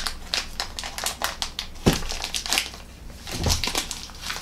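Irregular crinkling and crackling as the packaging of a broken chocolate bark bar is handled, with one sharper click about two seconds in.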